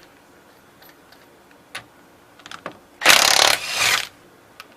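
Impact wrench with a 21 mm socket running in one burst of about a second, about three seconds in, rattling a wheel lug nut loose. A few light clicks come before it.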